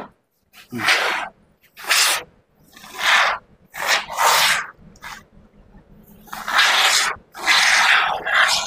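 An aerosol can of expanding insulation foam hissing in a series of short spurts, then in two longer sprays near the end, as it fills the opened refrigerator cabinet wall around the repaired evaporator.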